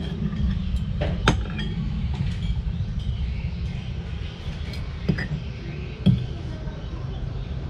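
Metal fork and spoon clinking against a ceramic bowl a few times while eating, over a steady low background rumble.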